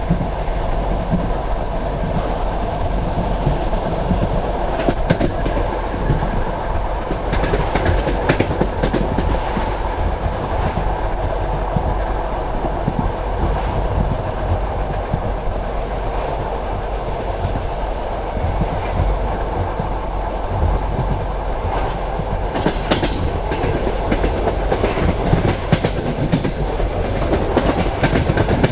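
Passenger train carriage rolling along the track: a steady rumble of wheels on rail, with clickety-clack over rail joints in several clusters.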